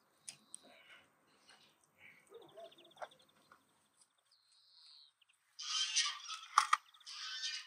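Small birds chirping, with a fast trill and a short whistle, in the first half. About five and a half seconds in comes a louder stretch of rustling and scraping with one sharp knock, as the platter of roast turkeys is handled and lifted.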